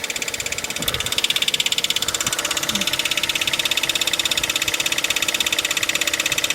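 Toyota 1ZZ four-cylinder engine running with a rapid, even metallic ticking knock. The owner traces it not to the engine itself but further left, towards the gearbox side, down low near the sump and skid plate.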